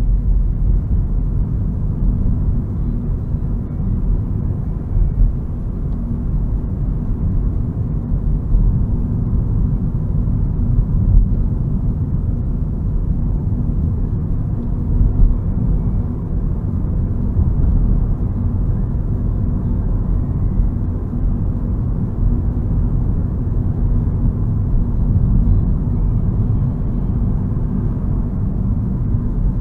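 Car driving, heard from inside the cabin: a steady low rumble of engine and road noise with small swells in level.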